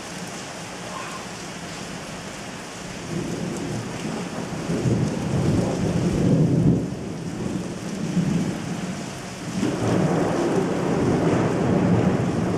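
Thunderstorm: steady rain with rolling thunder. A long rumble builds from about three seconds in and fades, then a second rumble swells about ten seconds in and carries on.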